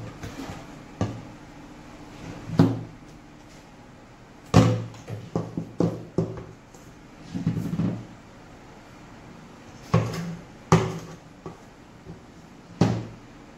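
Irregular knocks and clunks of a mixing bowl, wooden spatula and baking pans being handled as cake batter is put into the pans. There are about a dozen hits, a few of them sharp and loud.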